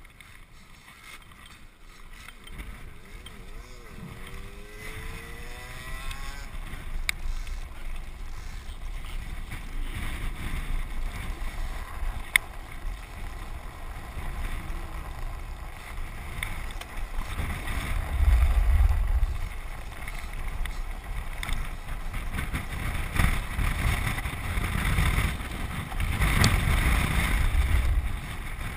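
Wind buffeting the camera microphone over the rumble of a land sailer rolling across a dry lake bed. It grows louder over the stretch, with the heaviest low gusts in the second half.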